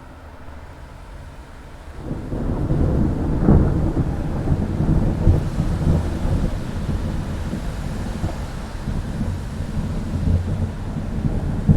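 Thunder over steady rain: a quiet rain hiss, then about two seconds in a long, deep rumble of thunder sets in suddenly, with its sharpest crack about a second later, and keeps rolling.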